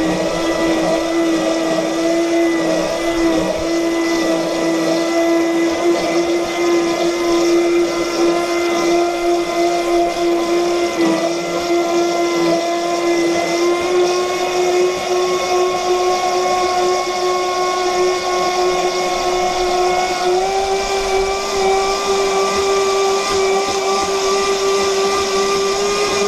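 Radio-controlled race boat's motor heard from on board, running at a steady high pitch that creeps upward and steps up twice, about halfway through and again near the three-quarter mark, over a rushing hiss of water and wind.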